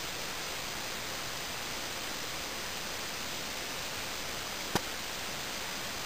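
Steady, even hiss with no distinct source, broken once by a single sharp click about three-quarters of the way through.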